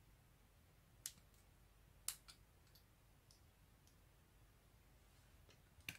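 A few faint, sharp clicks and ticks of small parts and a screwdriver being handled on a VCR head-drum stator assembly, two plainer clicks about one and two seconds in; otherwise near silence.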